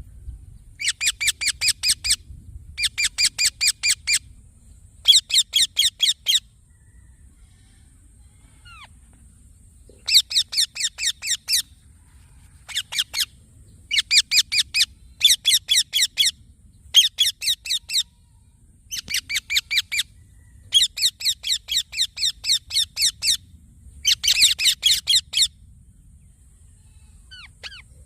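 Young green parrot, an Indian ringneck parakeet, calling in bursts of rapidly repeated shrill chirps, about seven a second. There are about ten bursts, each a second or two long, with short pauses between them.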